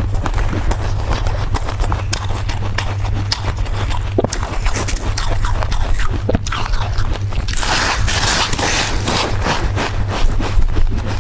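Chewing and handling soft freezer frost: a run of crisp, irregular crunches, with a longer, louder crunch about eight seconds in. A steady low hum lies underneath.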